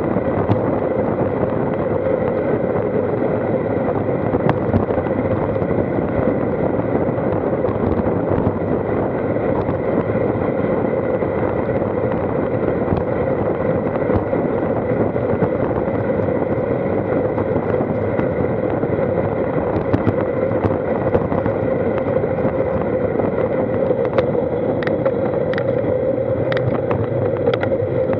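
Steady rushing of wind and tyre-on-asphalt noise picked up by a handlebar-mounted Garmin VIRB action camera on a moving road bike. A few light clicks come in near the end.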